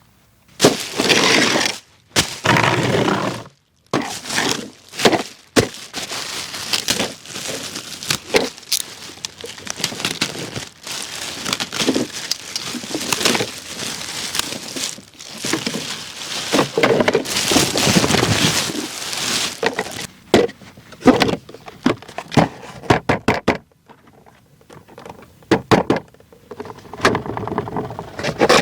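Hands handling a die-cast toy truck and its packaging: irregular crinkling and crackling of plastic wrap and cardboard, with many sharp clicks and knocks.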